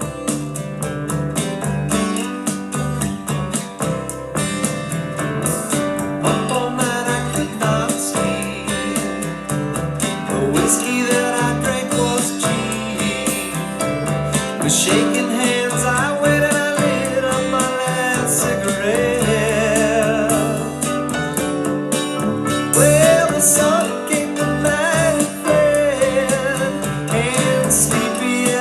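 Music: a country-rock song with strummed acoustic guitar and a gliding slide guitar.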